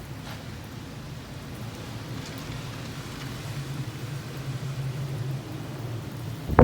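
Typhoon Hagibis wind and rain: a steady rushing noise that grows slightly louder toward the end.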